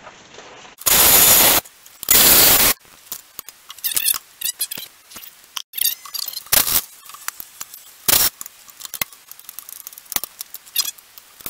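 Cordless ratchet running in short bursts as it loosens the radiator-support bolts: two bursts of under a second about a second and two seconds in, then shorter ones near six and a half and eight seconds, with clicks and knocks of the socket and metal parts in between.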